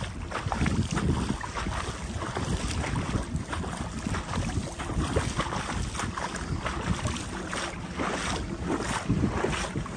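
Gusty wind buffeting the microphone, an uneven rush of noise that rises and falls.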